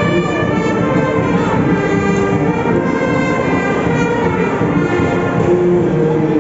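Brass marching band playing a tune, many horns holding notes together over a dense, steady low end.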